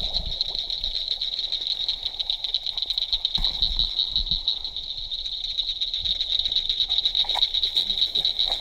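A steady, high-pitched, rapidly pulsing night chorus of calling frogs, with a few low thuds of footsteps through wet grass.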